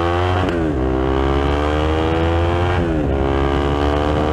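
KTM Duke 390 single-cylinder engine through a BlackWidow aftermarket exhaust, heard from the rider's helmet as the bike accelerates up a mountain road. Its pitch climbs steadily and drops sharply twice, about half a second in and near three seconds in, as the rider upshifts.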